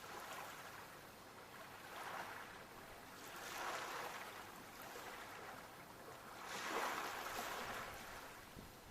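Sea waves washing in, rising and falling in three slow surges, the strongest near the end.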